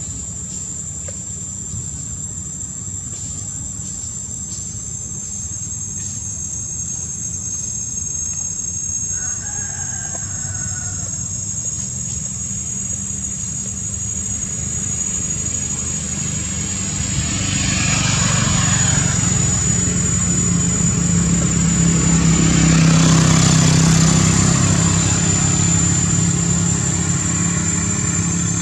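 A motor vehicle's engine rumbling steadily, growing louder from about halfway through and easing off slightly near the end, over a steady high-pitched insect drone.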